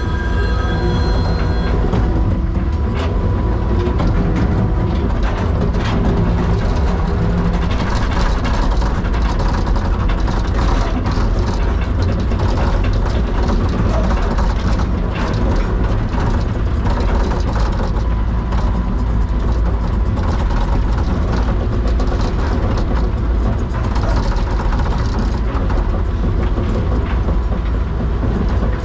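Heavy diesel equipment running steadily, with frequent metallic clicks and clanks over the engine.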